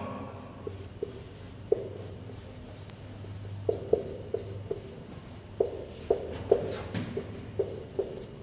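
Whiteboard marker writing on a whiteboard: irregular short squeaks and scratches of the felt tip as letters are drawn, about a dozen strokes, over a low steady room hum.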